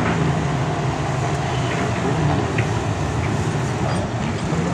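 Modstox stock car engines running as several cars circle the shale oval, a steady mixed engine noise with a few faint clicks.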